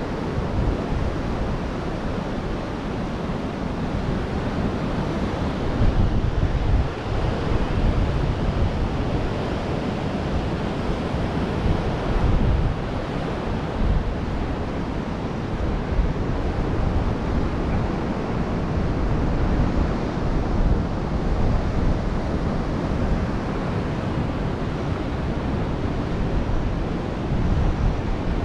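Ocean surf washing onto a sandy beach, with wind buffeting the microphone in gusts.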